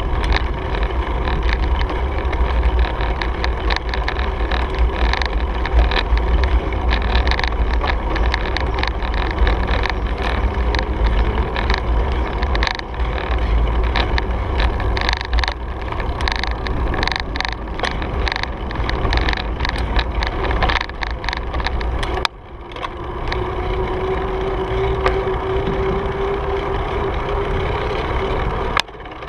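Wind buffeting the microphone of a bike-mounted action camera while riding, with tyre rumble on pavement and frequent clicks and knocks from the bike over bumps. A steady whining tone comes in during the last few seconds.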